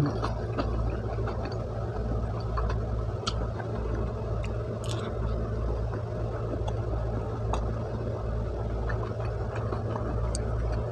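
Close-miked chewing of pizza with the mouth closed, with a few soft mouth clicks here and there, over a steady low background hum.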